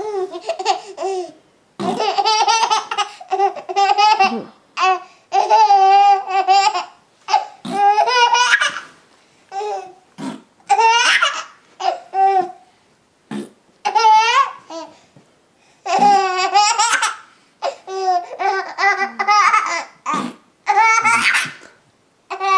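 A baby laughing hard in repeated bursts of belly laughs, each a second or two long, with short pauses between them.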